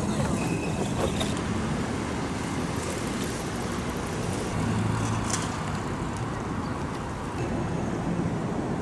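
Steady road-traffic noise from vehicles, with a low hum and a few faint clicks.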